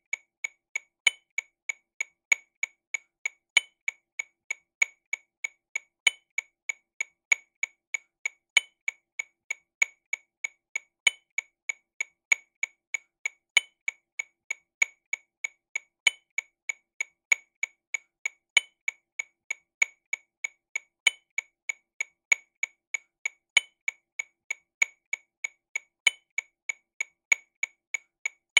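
TAMA Rhythm Watch RW200 metronome click at 48 BPM, subdivided into sixteenth notes: a steady train of short, sharp clicks about three a second, with louder accented clicks at regular intervals.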